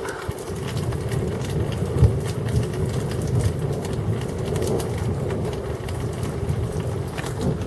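Thunderstorm: a long, low rolling rumble of thunder, with rain ticking and pattering close by.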